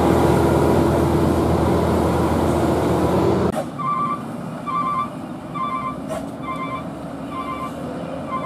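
Loud engine and tyre noise of a large box truck passing close, which cuts off suddenly about three and a half seconds in. After that, quieter traffic with a regular electronic beep like a truck's reversing alarm, about once a second.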